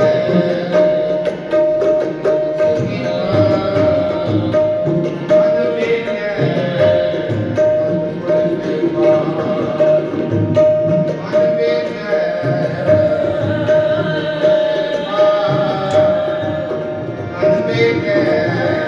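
Sikh devotional kirtan: hymn singing with tabla accompaniment and a bright note repeated in short pulses.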